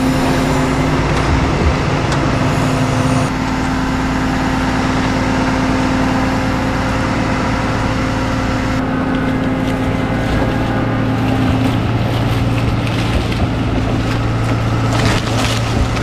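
Bucket truck's engine and hydraulic boom running steadily as the aerial bucket is raised, with a steady hum; the note changes about three seconds in and again near nine seconds.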